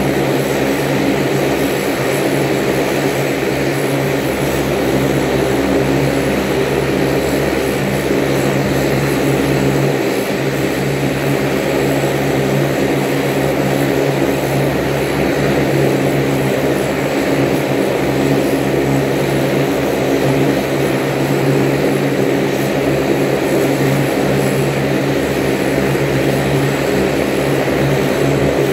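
Saab 340 turboprop's General Electric CT7 engines running on the ground during an engine test: a steady propeller drone with a thin high whine above it, holding even throughout.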